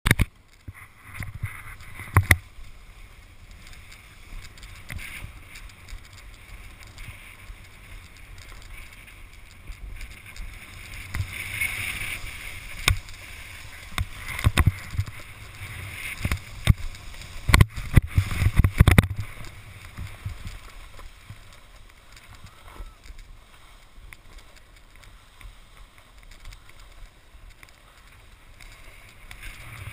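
Snowboard sliding and carving over spring snow: a rough scraping hiss with wind buffeting the body-mounted camera's microphone. Sharp knocks and bumps come and go, thickest a little past halfway.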